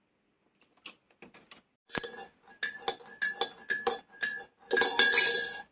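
Hard objects clinking: a run of sharp knocks starting about two seconds in, each ringing at the same note, turning into a dense jangle near the end.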